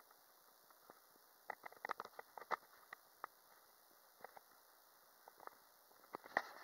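Scattered crackles and clicks from a camera microphone whose holes are plugged with adhesive, set off as the camera is handled and moved; a quick cluster of them about two seconds in and again near the end.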